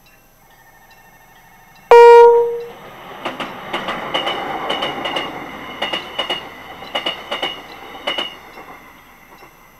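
A Mugunghwa-ho passenger train at a level crossing gives one short, loud horn blast about two seconds in. The rumble of the train passing follows, with a regular clatter of its wheels over the rail joints, fading near the end.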